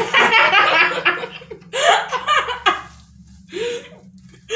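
A girl and a woman laughing hard together. There is a long loud burst of laughter at the start, a second burst about two seconds in, and a short one near the end.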